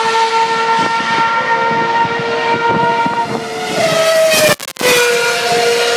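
Formula One car engines running at high revs: a loud, steady, high-pitched wail with a rising tone just before four seconds in. The sound cuts out briefly about halfway through the second half.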